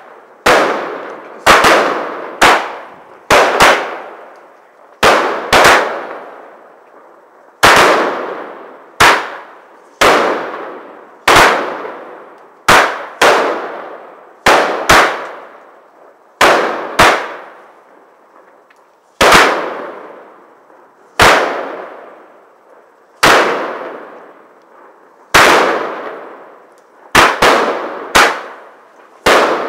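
Air bomb battery firework firing shot after shot: sharp bangs about every one to two seconds, some in quick pairs, each trailing off in a long fading ring.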